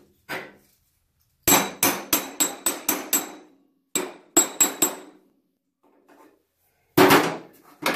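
Hammer driving a steel cold chisel into sheet metal to break a spot weld, in quick runs of sharp ringing blows about four a second, with pauses between runs and one more loud strike near the end.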